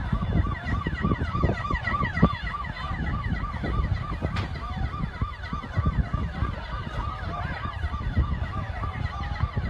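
Several emergency-vehicle sirens sounding at once, one with a quick up-and-down yelp about three times a second, over a steady low rumble.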